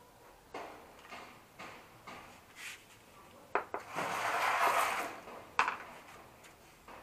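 Hand screwdriver backing screws out of a scooter's plastic tail panel, with soft ticks about every half second. Then a few sharp clicks and a loud rattling clatter of hand tools and parts in a plastic toolbox.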